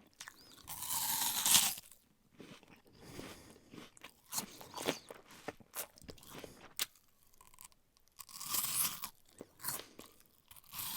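Apple being bitten and chewed close to the microphone. Crisp crunches come in irregular bursts, loudest about a second in and again around eight to nine seconds, with shorter, quieter chewing crunches between.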